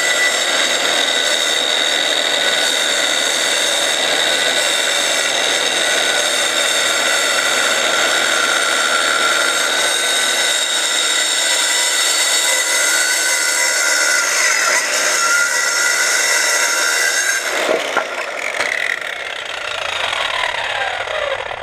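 Corded circular saw running at speed and cutting through a wooden board, a loud steady whine over the rasp of the blade in the wood. About 18 seconds in it is switched off with a click and the whine falls away as the blade spins down.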